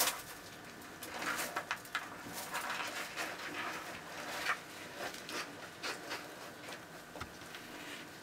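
Dumeril's monitor lizards shifting on loose soil substrate: irregular scratching and rustling of claws and bodies dragging over the dirt, busiest in the first half, with a sharp click right at the start.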